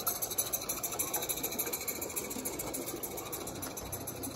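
Accucraft Taw live-steam garden-railway locomotive chuffing rapidly and evenly as it hauls its goods train past, the beat fading as the engine moves away. The wagons rolling over the track come in underneath near the end.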